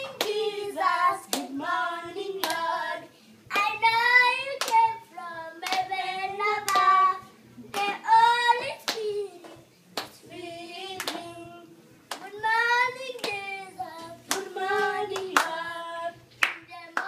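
A woman and a small child singing a song together, with hands clapping along to the beat.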